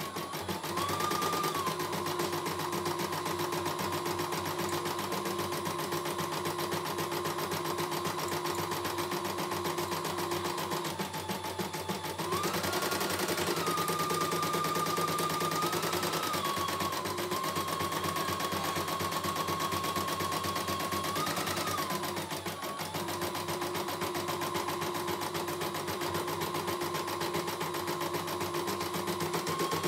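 CNY E900 computerised embroidery machine stitching a design: a fast, steady run of needle strokes over a motor whine. The whine shifts up and down in pitch several times as the stitching speed changes.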